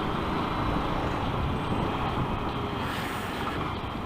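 Steady rush of wind and road noise on the microphone of a camera mounted on a moving Yamaha YZF-R125 motorcycle, in strong wind.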